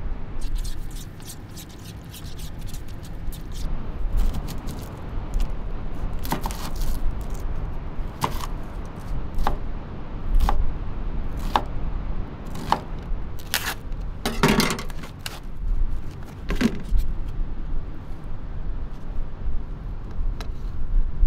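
Cooking gear being handled: scattered sharp clicks and knocks, about a dozen through the middle, with a longer scrape about two-thirds of the way in, over a steady low rumble.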